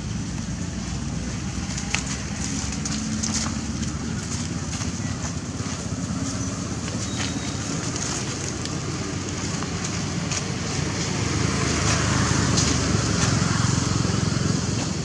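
Steady low outdoor rumble with scattered crackles and clicks of dry leaf litter being trodden on. The rumble swells for a few seconds near the end.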